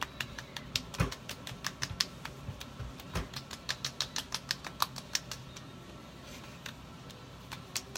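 Palms patting and pressing a freshly applied sunscreen or lotion into the facial skin. The wet, sticky contact gives a quick series of light clicks, several a second, which thins out after about five seconds.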